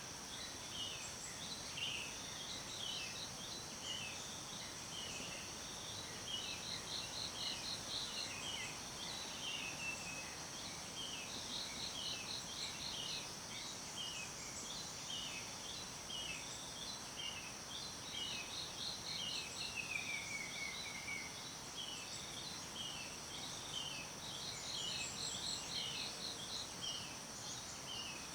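Forest ambience: several birds chirping steadily, with quick trills every few seconds and one longer falling call near the middle, over a constant high insect drone and a soft even hiss.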